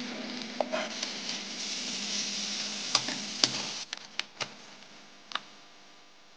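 Meat and aromatics sizzling in hot oil in a wok, with a utensil clinking sharply against the metal several times as the food is stir-fried. The sizzle fades after about four seconds, leaving a few more clinks.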